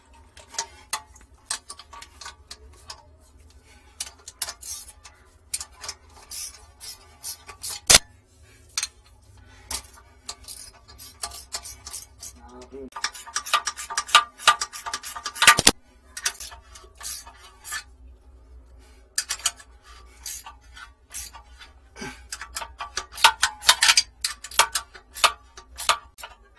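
Ratchet wrench clicking in short runs while tightening a pipe fitting. The clicking comes in dense quick runs about halfway through and again near the end, with a couple of sharper metal knocks between them.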